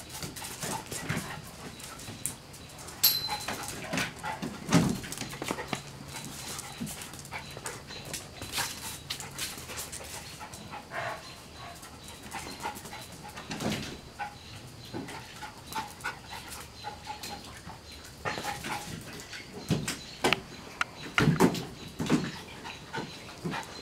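Puppies playing: dogs whimpering and giving short barks amid the scrabbling and splashing of a puppy in a shallow plastic wading pool.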